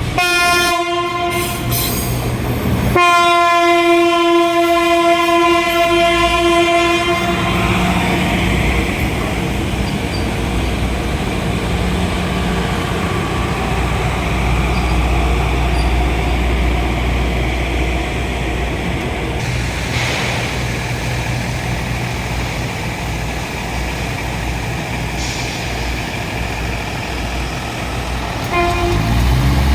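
Train horn sounding twice, a short blast and then a long one of about four seconds, followed by the steady low rumble of the train running past.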